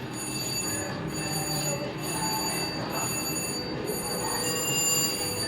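Electronic slot machine tones and jingles, several steady high pitches sounding together over the busy background din of a casino floor.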